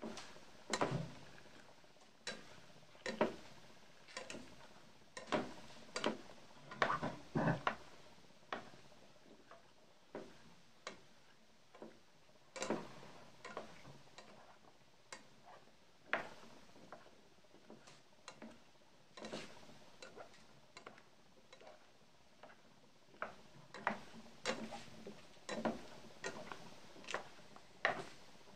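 A plastic spatula stirring and turning potato chunks in a deep frying pan: irregular knocks and scrapes against the pan and the potatoes, about one or two a second, sometimes in quick little clusters.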